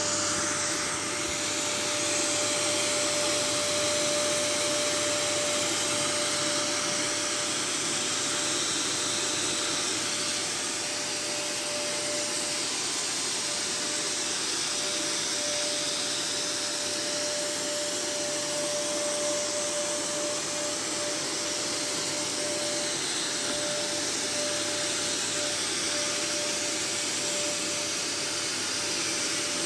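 Electric cold fogger running steadily, its blower hissing as it sprays a fine insecticide mist, with a steady whine through it.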